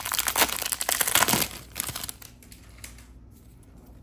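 Trading-card pack wrapper crinkling as it is pulled open and off the stack of cards, a dense crackle for about two seconds that then dies down to faint handling of the cards.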